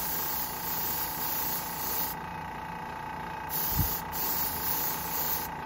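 Gravity-feed airbrush spraying paint in three hissing bursts as the trigger is pressed and released: the first about two seconds long, the last two close together near the end.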